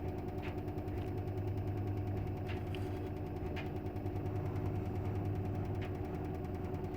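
LG front-loading washing machine spinning on its cotton cycle set to 1200 rpm: a steady motor hum and drum whir at constant speed, with a few faint light ticks.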